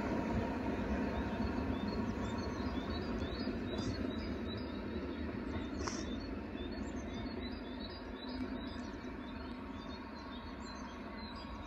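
Steam locomotive running away into the distance, its low rumble fading steadily, while small birds chirp repeatedly over it.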